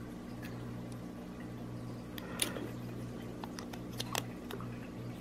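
Small, sharp metal clicks and taps, about eight scattered through, as steel tweezers fiddle a 377 button-cell battery into the open back of a quartz pocket watch, over a faint steady low hum.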